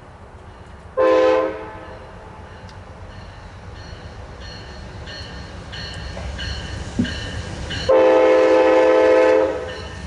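Diesel locomotive air horn, plausibly that of Union Pacific 1983, an EMD SD70ACe: a short blast about a second in, then a longer blast near the end. Between them the rumble of the approaching train grows louder.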